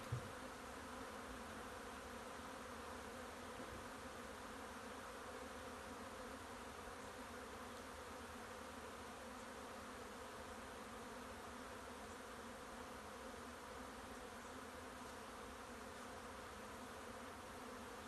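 A honey bee swarm buzzing: the steady, fairly faint hum of many bees flying around their cluster.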